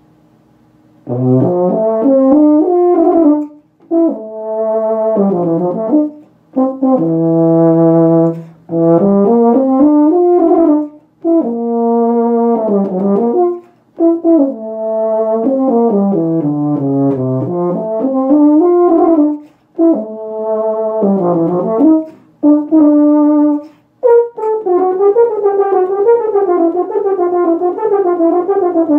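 Unaccompanied euphonium playing a solo: phrases of rising and falling note runs and held notes, broken by short breaths. About 24 seconds in, it moves into a faster passage of quick notes.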